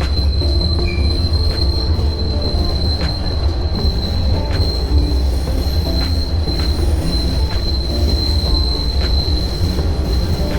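TTC subway train running between stations: a steady low rumble with a continuous high-pitched wheel squeal, and faint clicks from the rails about every second and a half.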